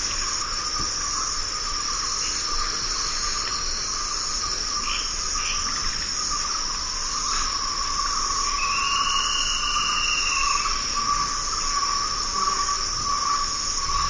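Dense chorus of many insects stridulating in steady, high-pitched layers. A few short chirps sound, and a little past the middle a single call rises and falls over about two seconds.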